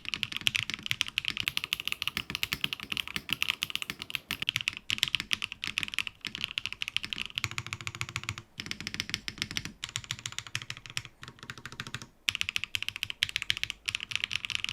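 Fast typing on the Eave65 mechanical keyboard kit, here in a completely foamless build with HMX Xin Hai switches: a dense run of sharp keystroke clacks with a few brief breaks. The board sounds really bright.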